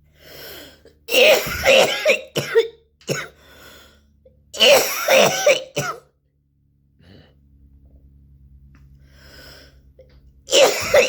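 A young woman coughing in fits with throat clearing: a bout of several coughs in quick succession about a second in, another near the middle, and a third starting just before the end, with quieter breaths in between.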